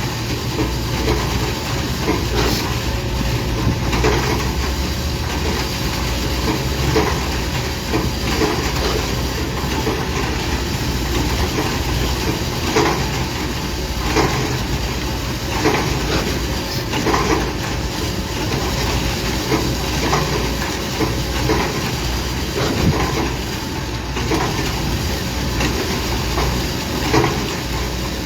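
Heavy diesel construction machinery running steadily, with short knocks or clanks repeating roughly every second and a half.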